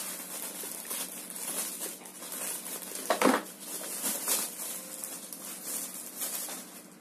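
Thin plastic packaging being handled and pulled open, crinkling and rustling in irregular bursts, with one louder knock about three seconds in.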